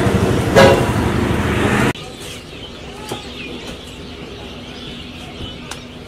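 Loud, busy street noise with a brief loud pitched sound about half a second in. It cuts off abruptly to a much quieter roadside background of low traffic hum, with small birds chirping.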